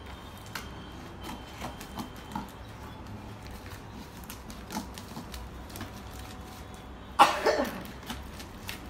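Scissors snipping and plastic packaging rustling as a wrapped parcel is cut open, in scattered small clicks and crinkles. About seven seconds in comes one loud, short burst that falls in pitch.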